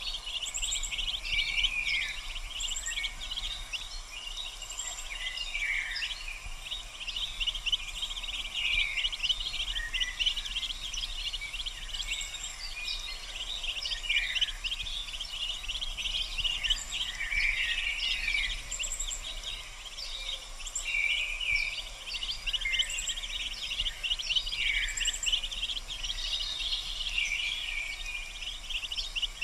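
Mallard ducklings peeping: a constant run of high, rapid chirps with short falling peeps every few seconds. Very high short notes from another small bird sound now and then in the background.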